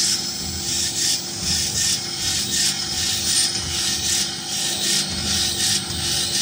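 Air fryer parchment paper liner punching and forming machine running: a continuous rasping hiss that surges in repeated strokes over a faint steady hum.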